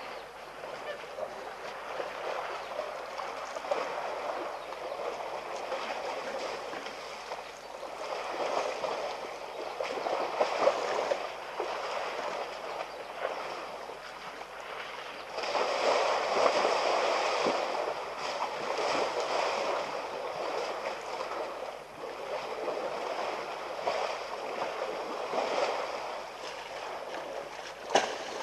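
Water and mud sloshing and splashing as elephants wallow and push against each other in a shallow waterhole, rising and falling in swells that are loudest about two-thirds of the way through. A brief sharp knock comes near the end.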